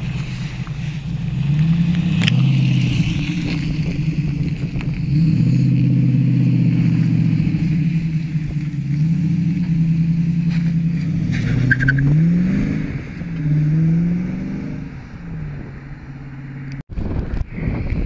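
TVR Chimaera 400's 4.0-litre Rover-derived V8 pulling away and accelerating off down the road, its exhaust note rising and dropping back several times as it shifts up, then fading into the distance. A sudden cut near the end leaves wind noise.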